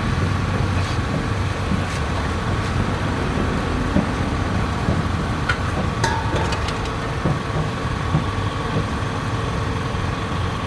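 Engine running steadily, a low rumble with a constant hum, with a few short clicks about six seconds in.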